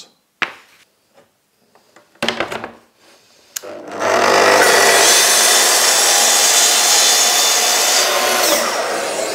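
A few knocks, then a Festool plunge track saw starts about four seconds in and runs steadily while it is pushed along its guide rail, cutting through a plywood sheet.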